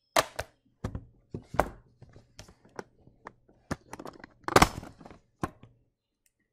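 A string of irregular knocks and clicks, close to the microphone, over a faint steady hum; the loudest knock comes about four and a half seconds in, and the sound cuts off abruptly about six seconds in.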